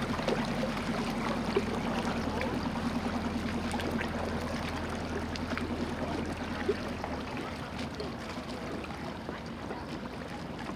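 Engine of a classic wooden motor launch running slowly as it passes close by: a low, steady throb over water lapping at the hull. The deepest part of the hum drops away about seven seconds in.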